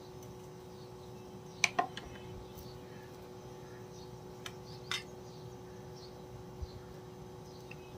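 Quiet background: a steady low hum with two faint steady tones, broken by a few brief sharp clicks, two close together about two seconds in and two more around five seconds in.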